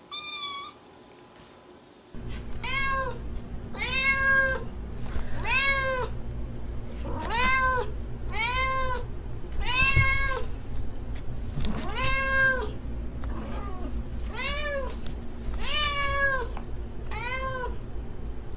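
Calico cat meowing over and over: about a dozen separate meows, each rising then falling in pitch, roughly one every second and a half. A single short meow comes right at the start.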